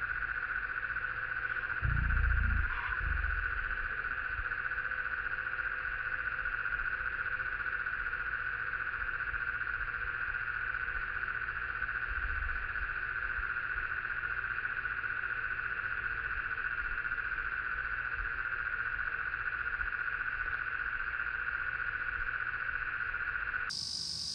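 Steady chorus of insects, unbroken and pitched unusually low, as in audio slowed down for slow motion. A brief low rumble about two seconds in.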